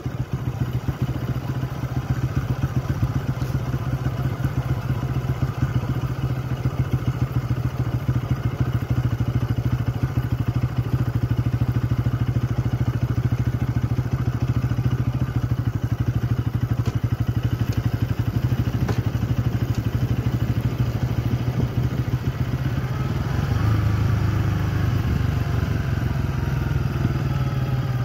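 Engine of a moving vehicle running steadily, a low even drone throughout. Near the end its note shifts lower and a faint falling whine comes in.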